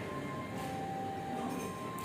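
Soft background music from the restaurant, a few long held notes.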